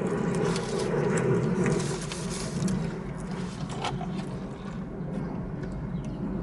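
A person chewing a mouthful of sandwich close to the microphone, with small wet clicks and smacks, over a steady low hum of vehicles.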